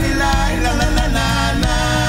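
Music: a song with a sung melody line over acoustic guitar accompaniment.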